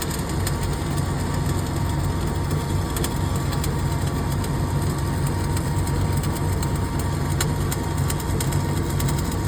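A machine running steadily with a low engine-like hum, with irregular sharp crackles over it.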